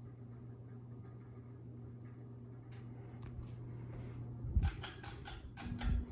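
Hampton Bay Jericho IV ceiling fan's motor humming steadily. About four and a half seconds in comes a quick run of sharp clicks and knocks, and after it the hum takes on an added higher tone.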